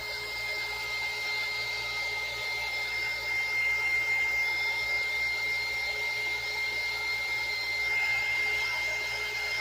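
Handheld heat gun blowing steadily with a high whine, passed over freshly poured resin to pop surface bubbles.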